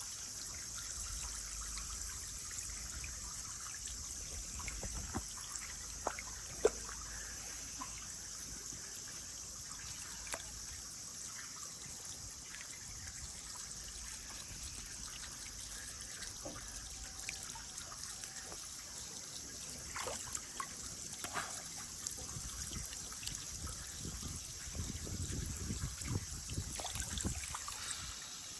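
Running water trickling steadily, as when filling water balloons, with a few small clicks and knocks, busier near the end.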